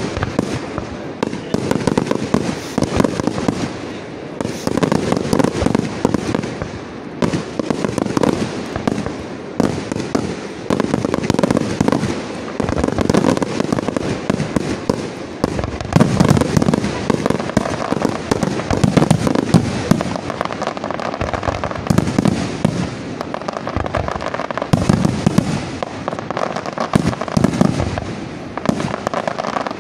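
Aerial fireworks display: shells bursting in the sky one after another, a dense run of bangs in quick succession with no real pause.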